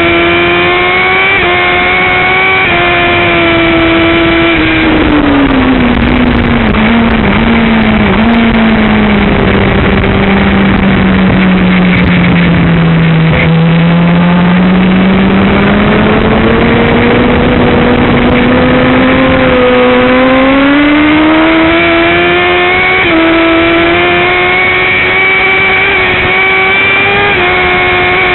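Suzuki GSX-R 1000 inline-four sportbike engine at racing speed on track. Its note holds high and then drops slowly over several seconds to its lowest about halfway through, as the bike rolls through a long corner, before climbing back up under acceleration. Loud wind rush runs underneath.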